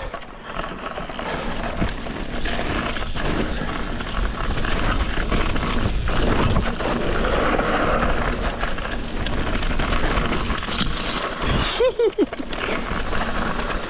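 Wind rushing over the microphone and the steady rumble and rattle of riding fast down a dirt jump trail, with scattered knocks from bumps. A short wavering tone sounds about twelve seconds in.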